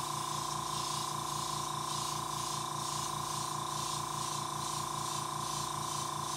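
Airbrush spraying paint: a steady hiss of air over a constant hum, with the hiss pulsing a few times a second.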